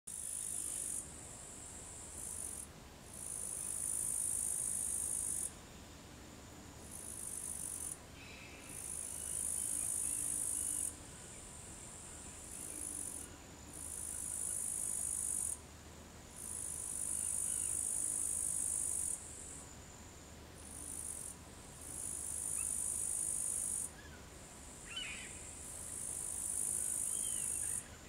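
Upland green bush-cricket (Tettigonia cantans) singing: a high-pitched, buzzing stridulation delivered in long phrases of about two to four seconds, each broken off by a brief pause before the next begins.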